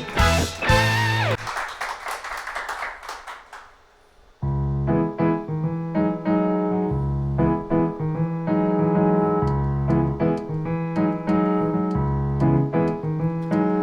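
Music: the end of one piece fades out over the first few seconds, and after a short near-quiet a keyboard starts playing a steady run of chords over a bass line.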